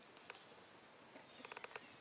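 Baby long-tailed macaque giving short high squeaks: two near the start, then a quick run of about five about a second and a half in.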